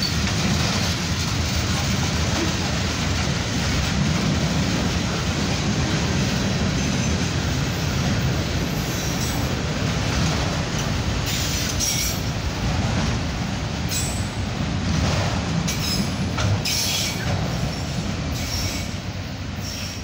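Freight train's covered hopper and autorack cars rolling past close by: a steady rumble of steel wheels on rail. Brief wheel squeals and clanks come through in the second half.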